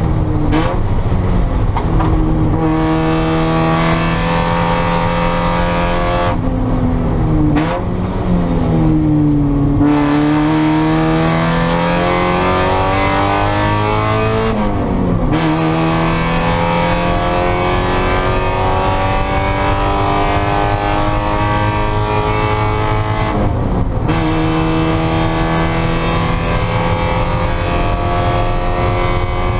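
Spec Miata's four-cylinder engine racing at full throttle, its pitch climbing steadily through each gear and breaking at several gearshifts, with a slow drop and pickup around eight to ten seconds in as the car brakes for a corner and accelerates out.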